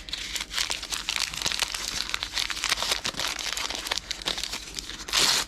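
Plastic packaging crinkling as it is handled and opened, a dense run of crackles, with one louder rustling burst near the end.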